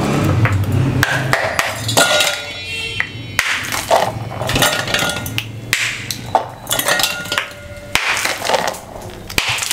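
A block of ice being broken up with a wooden-handled tool in a steel bowl: repeated sharp knocks and cracks, the bowl ringing now and then. Ice chunks are dropped into a glass blender jar.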